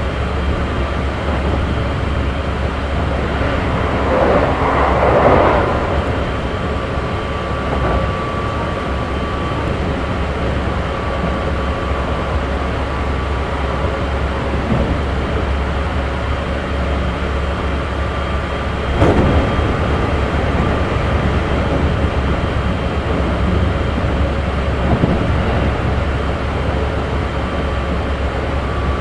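Running sound inside a Keikyu 1500 series motor car with Mitsubishi GTO inverter equipment, travelling at speed: a steady rumble of wheels on track under a thin steady tone. A swell of noise comes about four to six seconds in, and a single sharp knock about nineteen seconds in.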